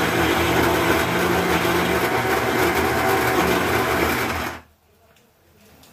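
Electric mixer grinder (mixie) running, grinding peanut chutney; the steady motor noise cuts off suddenly about four and a half seconds in.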